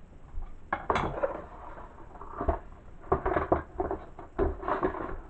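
Irregular knocks and clatter of things being handled and set down on a wooden floor close to the microphone, as a drum practice pad's cardboard box is put down in front of it.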